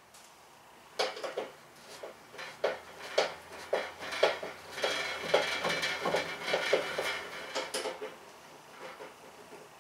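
Metal clinks and light clattering from working on a two-burner camp stove with a hand screwdriver. Short sharp knocks start about a second in and come thicker through the middle, then thin out toward the end.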